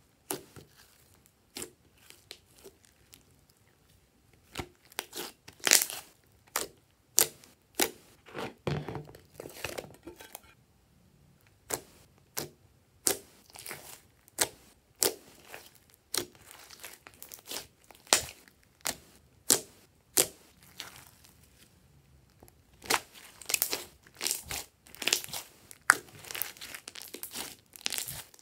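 A large lump of thick slime being squeezed, stretched and kneaded by hand, giving irregular sharp pops and crackles, some in quick runs.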